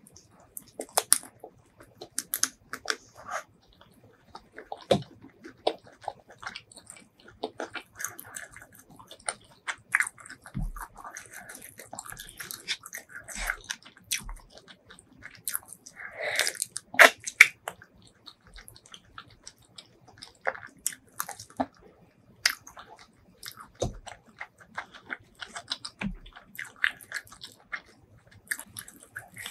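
Close-miked chewing and biting of spicy sauced seafood and enoki mushroom: a continuous run of quick, sharp mouth clicks, smacks and crunches.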